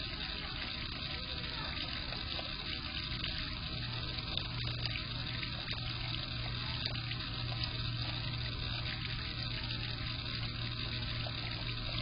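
Bird-bath fountain pump running, its jet of water splashing steadily into the basin, with a steady low hum that grows stronger about four seconds in.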